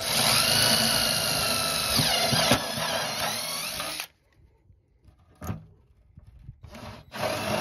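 Power drill spinning a step bit through a fiberglass inner fender panel, running steadily for about four seconds with a high whine. It stops, gives one short blip, and starts drilling again near the end.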